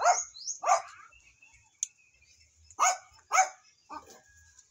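Dog barking: two barks, a pause of about two seconds, then two more and a fainter fifth near the end.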